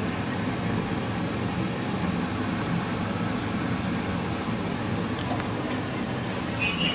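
Chopped onions and capsicum frying in a kadai on the stove: a steady low rushing noise with a few faint light clicks in the second half.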